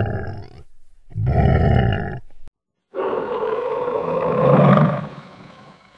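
Two short, deep roars, then from about three seconds in a longer alligator roar that swells and fades away.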